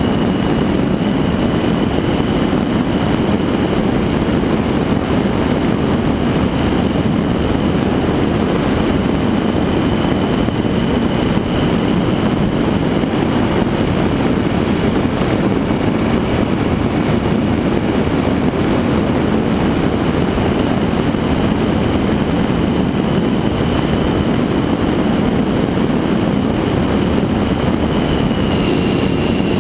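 Suzuki V-Strom 1000 motorcycle riding at a steady speed, heard from a camera mounted on the bike: a constant rush of wind and road noise mixed with its V-twin engine.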